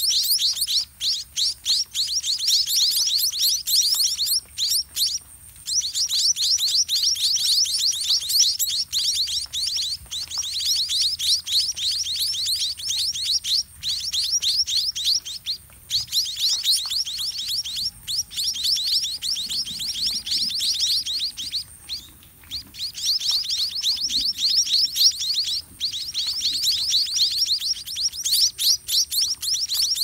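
White-rumped munia nestlings begging to be fed: rapid, continuous high-pitched cheeping with a few short breaks.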